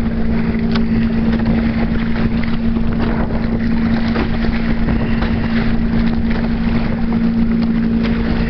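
Wind buffeting the microphone and choppy water splashing and rushing past the hull of a Hobie Tandem Island sailing kayak under way, with a steady low hum throughout.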